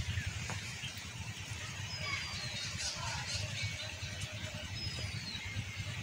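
Open-air field ambience: a low, buffeting rumble of wind on the microphone with a few birds calling over it, including two short whistles that fall in pitch about two and five seconds in.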